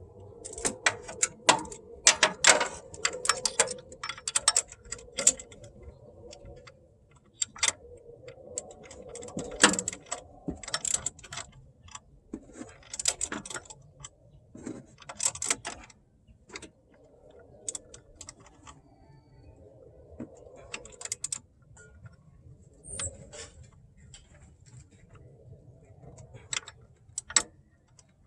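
Hand tools clicking and clinking against metal, in irregular clusters of sharp clicks with pauses between.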